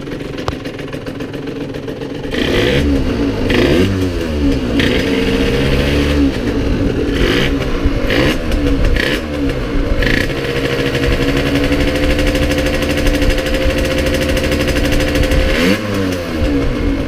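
2010 Yamaha TZR50's 50cc single-cylinder two-stroke engine idling, then revved up and down several times before being held at higher revs for about five seconds and dropping back to idle near the end.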